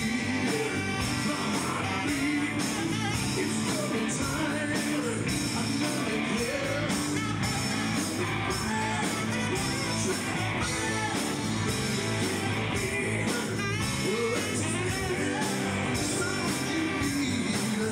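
Live rock band playing, with drums, electric guitar and bass under a tenor saxophone playing the lead line.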